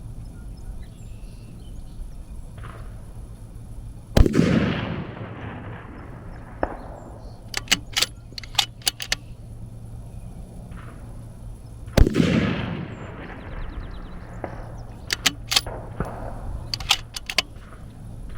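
Two gunshots about eight seconds apart, each a sharp crack followed by a long rolling echo, with clusters of short sharp clicks in the seconds after each shot.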